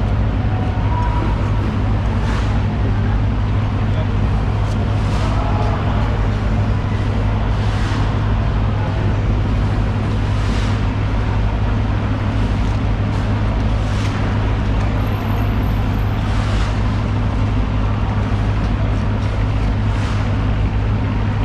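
A steady low machine hum with a sharp knock every two to three seconds.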